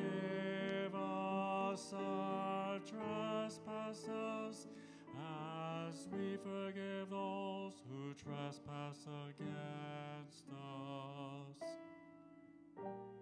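A man singing a slow melody with grand piano accompaniment; the voice stops near the end, leaving the piano alone.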